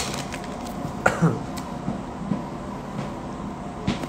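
Quiet room tone with a few short clicks and a brief cough-like throat sound from a man, about a second in.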